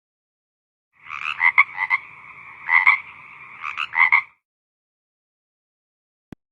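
Nokia phone ringtone: a tone held for about three seconds, with three louder pulsed bursts over it about a second apart, the first the longest.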